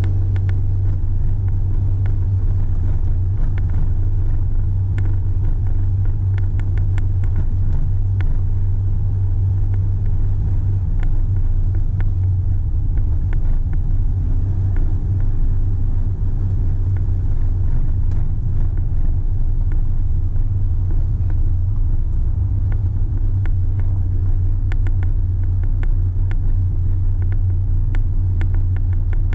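Car driving slowly on a narrow lane, heard from inside the cabin: a steady low rumble of engine and tyres with many scattered light clicks and rattles.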